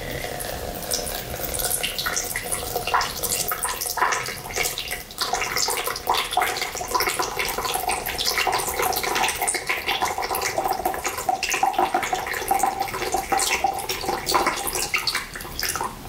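Water pouring from the spout of a small (80–90 ml) Yixing clay teapot into a plastic measuring jug, a slow, thin stream splashing steadily into the water already in the jug.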